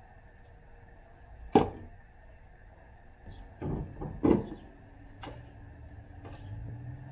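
Clicks and knocks of hands working on the open driver's door of a Suburban, handling its parts: one sharp loud snap about one and a half seconds in, a cluster of knocks around four seconds, then a couple of lighter clicks.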